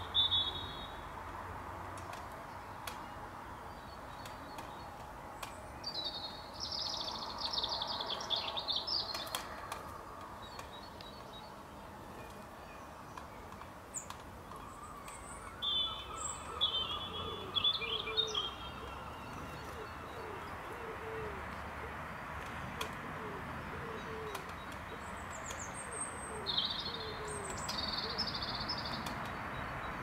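Wild birds singing at dawn: clear bursts of song come every several seconds. Near the middle, a run of short, low, evenly spaced calls sounds over a steady background hiss.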